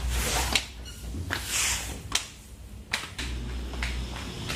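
Footsteps on a staircase: a few scattered taps, with a brief hissing rustle about a second and a half in, over a low rumble from handling of the camera.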